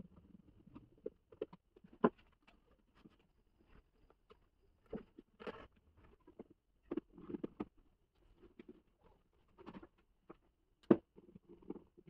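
Irregular small clicks, scrapes and rustles of hands handling wires and a small screwdriver at the terminal screws of plastic relay sockets, with sharper clicks about two seconds in and again near the end.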